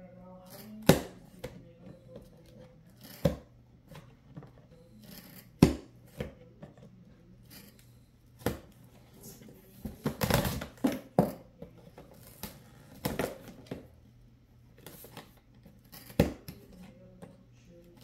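Metal plug of a USB cable scratching and jabbing at plastic packing tape on a cardboard box: irregular sharp scrapes and taps, with a denser stretch of scratching and tearing about ten seconds in.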